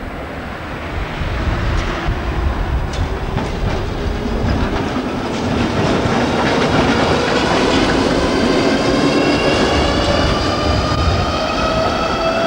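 Yellow Budapest Ganz UV tram set passing close by, its wheels clicking sharply over the rail joints. From about eight seconds in, its motors give a whine that climbs steadily in pitch as it pulls away and picks up speed.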